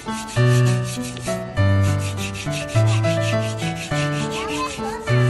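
A stiff-bristled plastic brush scrubbing a hippopotamus's lower tusk in quick, repeated strokes, over background music with a bass note that changes about every second.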